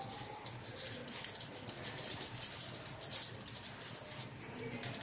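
Felt-tip marker scratching over a paper chart as a line of words is written: a run of faint, short pen strokes.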